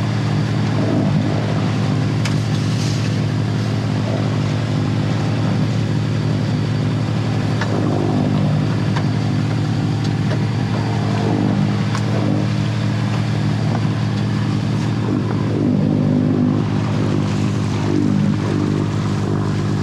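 A sailboat's inboard auxiliary engine motoring at a steady cruising speed: an even, unbroken low drone.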